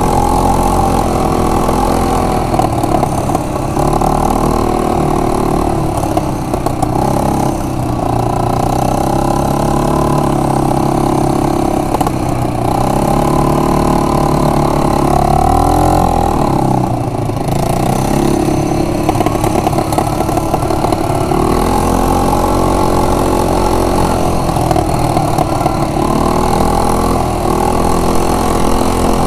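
Yamaha Grizzly 125 quad bike's small single-cylinder four-stroke engine running under varying throttle, its pitch rising and falling. The engine note drops away and climbs again a little past halfway.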